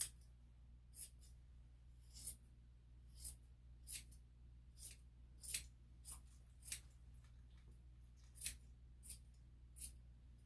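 Grooming scissors snipping through a miniature poodle's fur: about a dozen crisp, separate snips at uneven intervals, with a short pause past the middle.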